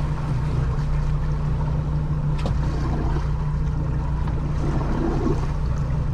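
Boat engine running steadily at trolling speed, a low even hum.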